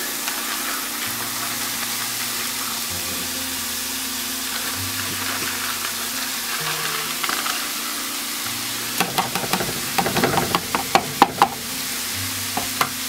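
Chicken and vegetables sizzling steadily in a frying pan as cold cooked basmati rice is tipped in and crumbled by hand, with a quick run of sharp taps and knocks about nine seconds in.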